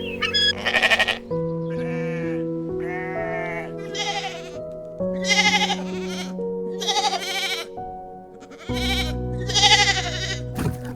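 An animal bleating about eight times in short, wavering calls over soft background music.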